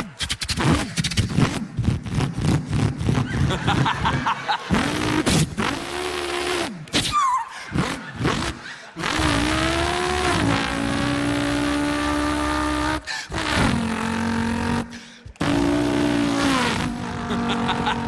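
A man imitating a V8 Holden Torana with his voice. It starts with a fast burbling idle, then revs rising and falling, then long pulls whose pitch climbs and drops back in steps, like gear changes.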